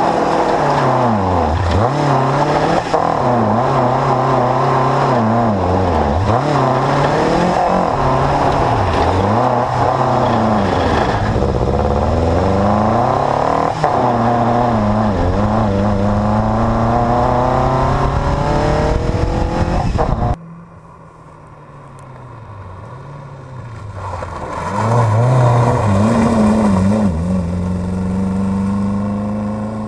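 Škoda 100L rally car's 1.3-litre Škoda Felicia four-cylinder engine on motorcycle carburettors, heard close up from the bonnet, revving hard and dropping again and again as it is driven flat out. About two-thirds through it is heard from the roadside instead: it grows louder, then fades as the car drives off.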